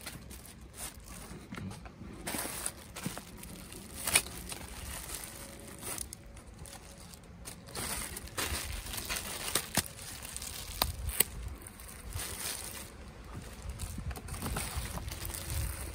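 Plastic fruit bags and foam net sleeves crinkling and rustling as guavas are unwrapped by hand, with irregular short crackles.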